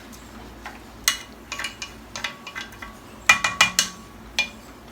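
A metal utensil clinking and knocking against a cooking pot in a scattered run of hits. The loudest cluster of ringing clinks comes about three and a half seconds in.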